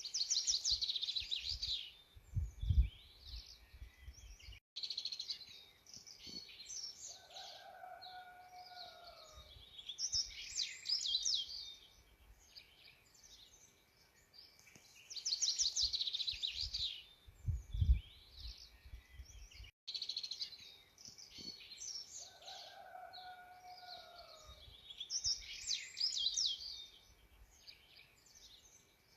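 Songbirds singing: fast high trills and chirps from several birds, with a lower slurred whistle now and then. The recording loops and repeats about every 15 seconds. A low thump, the loudest sound, comes a few seconds in and again in the repeat.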